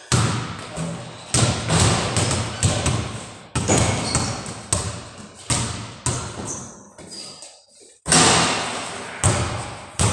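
Basketballs bouncing on a hard floor, an irregular run of thumps about one a second, each echoing off the bare block walls of a large room. The loudest thump comes about eight seconds in.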